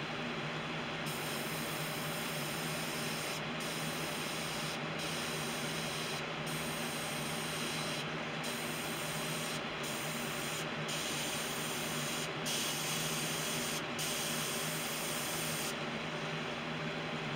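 Iwata airbrush spraying paint in a run of short hissing bursts, broken by brief pauses every second or two, as gray dots are put on a lure. The hiss starts about a second in and stops shortly before the end.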